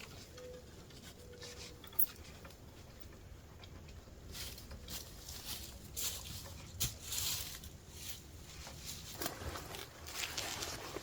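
Irregular rustling and light scuffs, with a sharp click about two seconds in; the rustling gets busier from about four seconds on.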